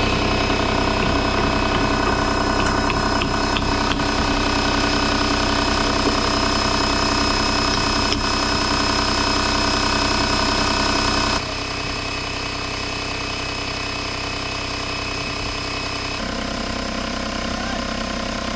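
An engine running steadily at an even speed. The sound changes abruptly about eleven seconds in and again about sixteen seconds in.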